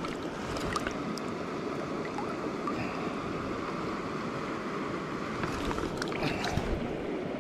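Steady rush of a small freestone mountain creek running over rocks. About six seconds in, brief light splashing as a hand dips into the water to release a small brown trout.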